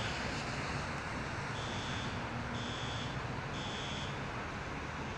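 Electronic alarm beeper sounding a high, even beep about once a second, three times, over a steady background rush.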